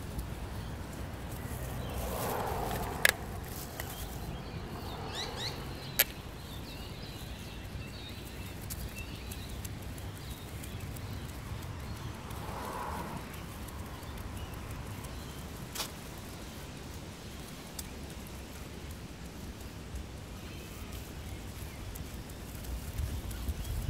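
Outdoor ambience on a walk: a steady low rumble with three sharp clicks spread through it, and a few faint bird chirps about five seconds in.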